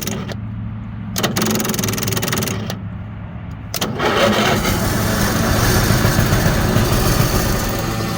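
Cold Onan RV generator being cranked in short bursts, then catching about four seconds in and running on.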